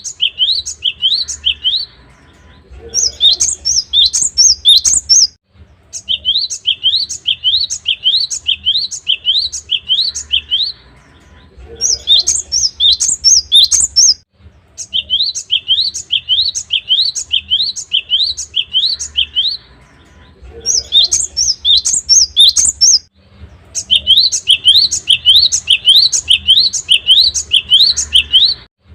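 Cinereous tit (gelatik batu) singing: phrases of quick repeated high chirping notes, a few notes a second, each phrase lasting two to five seconds with short pauses between. Shorter, higher-pitched phrases alternate with longer, lower ones.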